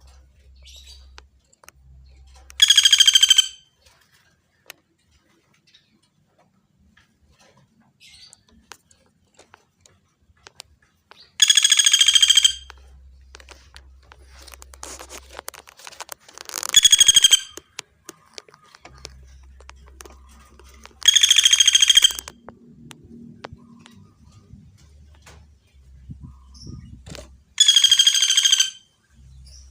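Common flameback woodpecker calling loudly: five calls of about a second each, several seconds apart.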